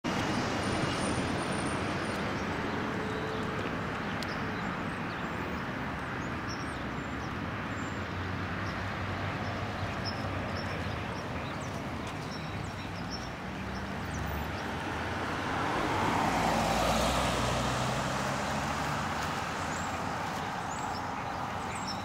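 Steady street traffic noise, with one vehicle passing louder about sixteen seconds in. Faint short bird chirps come through here and there.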